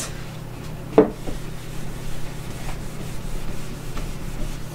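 A felt whiteboard eraser rubbing back and forth over a whiteboard, wiping off marker writing, with a short sharp knock about a second in.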